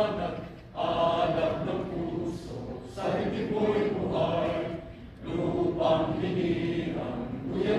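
Many voices singing together in slow, sustained phrases of about two seconds each, with short breaks between them: an assembly singing a hymn or anthem.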